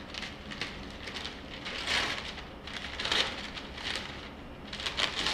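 Packing wrap crinkling and rustling as it is pulled off a paramotor propeller blade, in several louder bursts about two, three and five seconds in.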